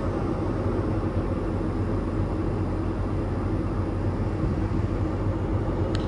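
Tractor's diesel engine running steadily, heard from inside the cab as a constant low drone.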